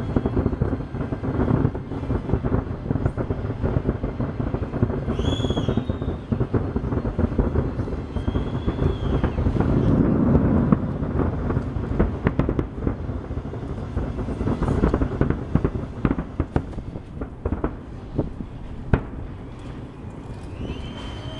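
Fireworks about a mile away going off in a dense, rapid run of booms and crackles, densest about ten seconds in and thinning toward the end.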